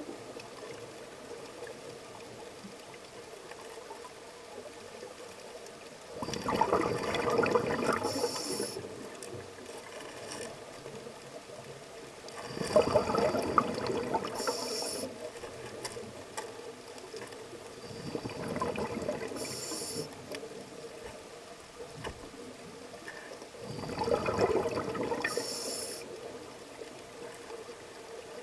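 Scuba breathing through a regulator underwater: four breaths about six seconds apart, each a rush of bubbling that ends in a short high hiss. A faint steady hum lies underneath.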